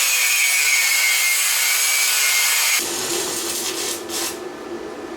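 Power grinder grinding a high-carbon steel axle: a loud hissing rasp with a whine that sags slightly under load, cutting off sharply about three seconds in. A quieter steady hum follows.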